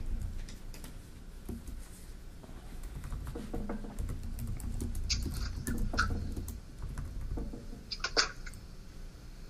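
Small handling noises around a meeting table: paper rustling with light irregular clicks and taps, the sharpest a couple of taps about eight seconds in, over a low rumble.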